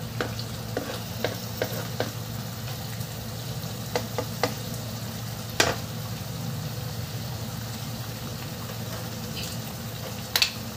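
Black bean sauce bubbling and sizzling in a nonstick wok around a fried pomfret, with a spatula clicking against the pan several times in the first half and a sharper knock near the end.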